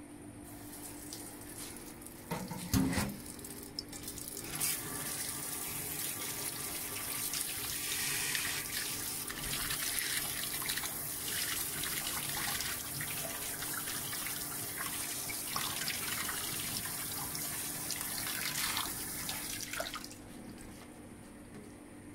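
Kitchen tap running into a stainless-steel sink, the stream splashing over a boiled corn cob held under it and onto a plate beneath; the water comes on about four seconds in and is shut off near the end. A short knock about three seconds in.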